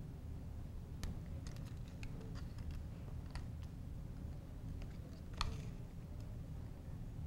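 Small scattered plastic clicks and ticks as the Blade Nano CP X's ball links are pressed and snapped onto the rotor head, with one sharper snap about five and a half seconds in, over a steady low hum.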